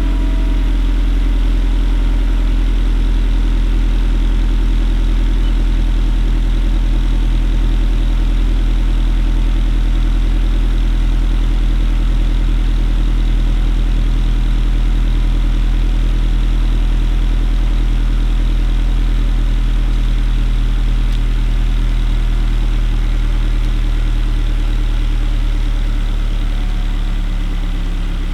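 2016 Scion tC's 2.5-litre four-cylinder engine idling steadily through its stock OEM exhaust, with a deep, even low drone.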